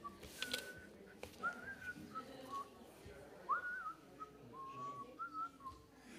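A person whistling a slow tune softly: single clear notes that step up and down, with a couple of short upward slides. There is a faint knock about a second in.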